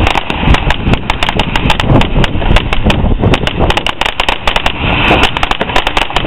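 Crackling firework: a dense, irregular stream of small sharp pops and snaps, many a second, going on without a break.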